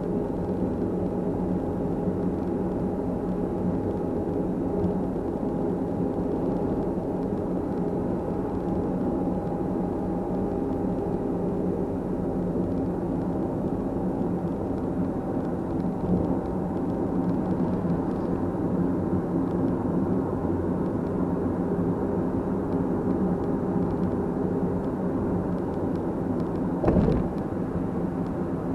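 Steady engine and tyre hum of a car driving, heard from inside the cabin, with one short thump near the end.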